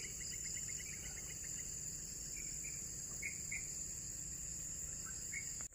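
Steady high-pitched drone of crickets and other insects, with a rapid run of faint ticks in the first second and a few faint short chirps later on.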